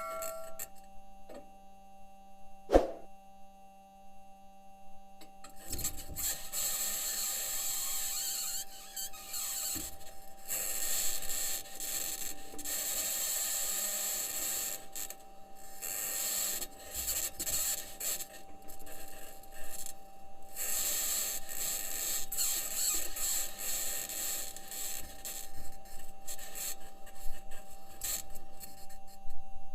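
Perseverance Mars rover's microphone recording: scratchy grinding and squealing that comes and goes in irregular stretches, typical of the rover's metal wheels driving over rock, over two steady electrical hum tones.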